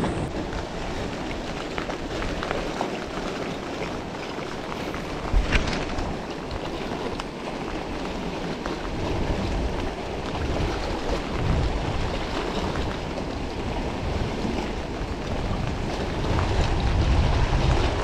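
Steady wind and sea-surf noise, with wind buffeting the microphone more heavily near the end, and one short knock about five seconds in.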